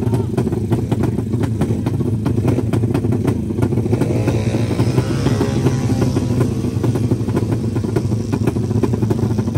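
Drag-race motorcycle engines running loud and steady at the start line, with a rise and fall in pitch about halfway through.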